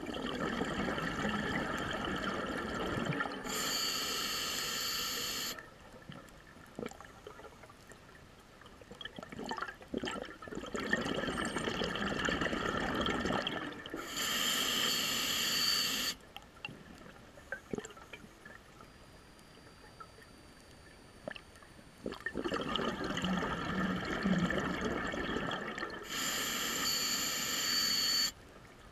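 Scuba diver breathing through a regulator underwater, three slow breath cycles: each is a few seconds of bubbling exhaust, then a loud hissing breath drawn through the regulator, then a quieter pause of several seconds.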